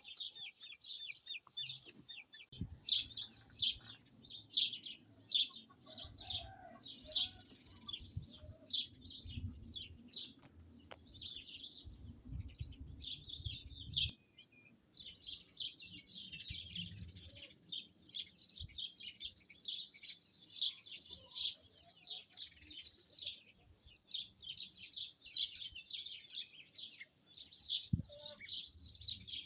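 Many small birds chirping and twittering densely, with a short break about halfway through. A low wind rumble sits underneath during the first half.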